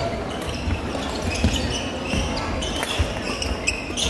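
Badminton rally sounds in a busy sports hall: sharp racket hits on shuttlecocks, some from nearby courts, and short squeaks of court shoes on the floor, over the general din of the hall.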